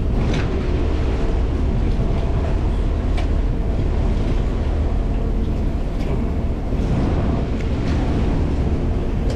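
Steady low engine rumble with a faint hum, with a few light clicks on top.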